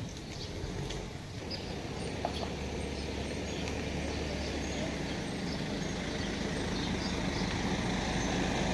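A motor vehicle's engine running with a low steady hum, growing gradually louder.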